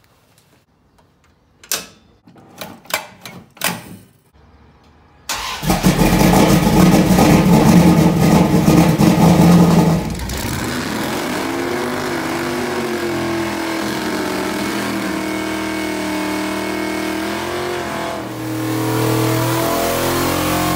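A few sharp knocks, then about five seconds in a small-block Mopar V8 in a 1968 Dodge Dart drag car starts up loudly. It settles at about ten seconds into a steady run with a wavering pitch and grows louder near the end.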